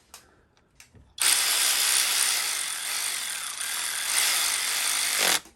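Hand socket ratchet cranked rapidly, a continuous run of pawl clicks lasting about four seconds and starting about a second in, as it runs down the screws holding an ignition coil pack.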